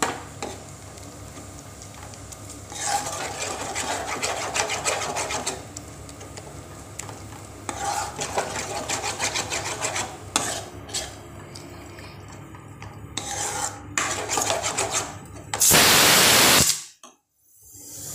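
A metal spoon stirring and scraping fresh chhana with condensed milk around a karai, in bouts of two or three seconds, over a faint steady hiss. Near the end a loud rush of noise lasting about a second cuts off suddenly into near silence.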